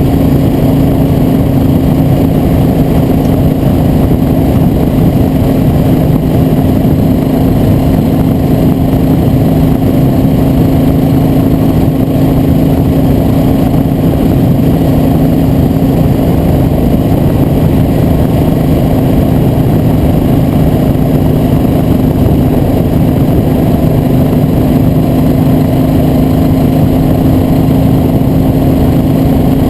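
A vehicle's engine running at a steady, unchanging speed, a constant hum over a loud rushing noise, as when cruising on the road.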